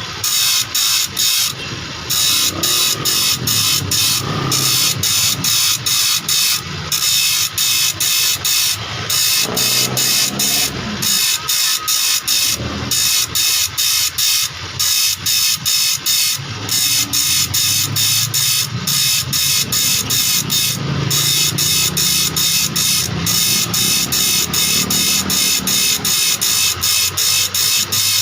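Steel file rasping across a saw blade in quick, even strokes, about three to four a second, cutting new, smaller teeth.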